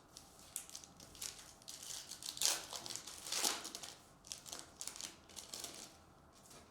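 Foil trading-card pack wrapper crinkling and crackling in irregular bursts as it is handled, loudest about two and a half and three and a half seconds in.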